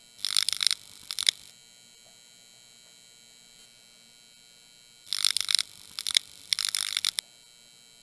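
End-screen sound effect: short bursts of crackling noise, two in the first second and a half and three more between about five and seven seconds in, over a faint steady hum.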